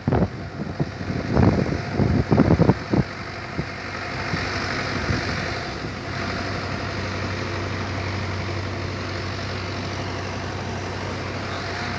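A rapid, irregular string of sharp firecracker bangs for about the first three seconds, then a steady rumble with a low hum, like a vehicle engine idling.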